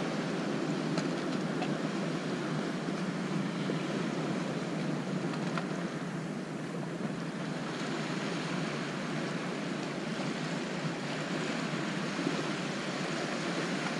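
Ocean surf washing steadily over a rocky shoreline, a continuous wash of water noise with some wind on the microphone.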